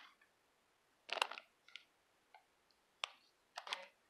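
A few short, light clicks and taps of plastic, spaced irregularly: small Lego models and pieces being handled.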